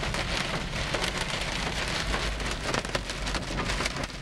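Large hail, about an inch across, pelting a van's windshield and roof, heard from inside the cabin: a dense, steady clatter of many sharp hits over a low rumble.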